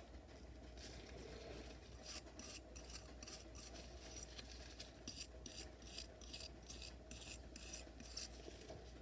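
A brush scrubbing rust off a steel knife blade in quick back-and-forth strokes, a raspy scratch with each stroke, starting about two seconds in.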